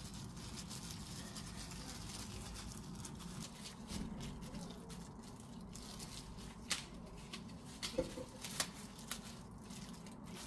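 Quiet food-handling sounds as kimbap is assembled: a plastic glove and romaine lettuce leaves rustling, with a few light clicks and taps in the second half, over a steady low hum.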